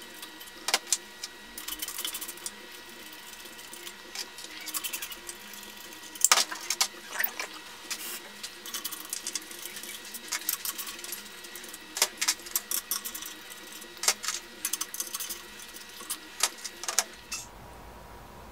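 Ratchet wrench clicking and metal clinking in short spells, with scattered sharp clicks, as the pump's volute casing bolts are loosened and backed out.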